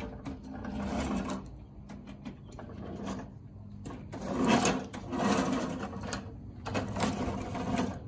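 Electric drive motors of a remote-control lawn mower conversion whining in several spurts as it drives and turns on concrete.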